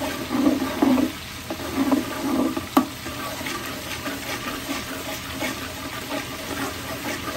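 Garlic-ginger and tomato paste sizzling in hot oil in a large aluminium stockpot while a long metal spoon stirs and scrapes through it, with one sharp knock a little under three seconds in.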